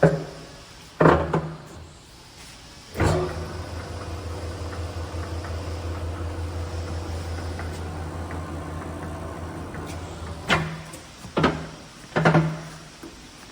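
17" x 50" Cadillac gap bed engine lathe: a few sharp clunks, then the lathe running at a slow setting with a steady low hum for about seven seconds, followed by three more clunks near the end.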